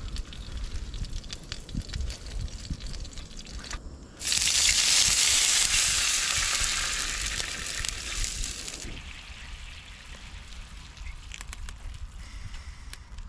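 Light clicks of a fork against a hot Ridge Monkey pan, then about four seconds in liquid poured into the hot, greasy pan bursts into a loud hissing sizzle that holds for several seconds and fades to a faint sizzle: the pan is being deglazed to make gravy.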